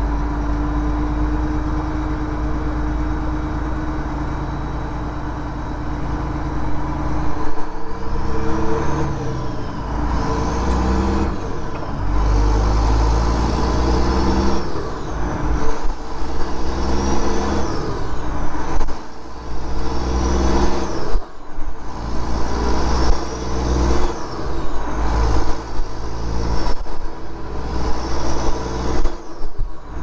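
Detroit Diesel engine in a Freightliner truck, heard from inside the cab, pulling away and accelerating up through the gears of a 13-speed transmission. The engine runs steadily for several seconds, then builds again and again with a rising turbo whistle that drops off at each upshift.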